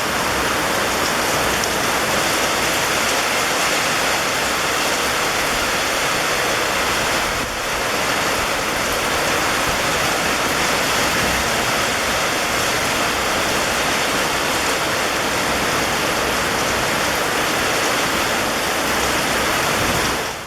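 Steady rain, an even dense hiss with a brief slight dip about seven seconds in. It begins to fade out at the very end.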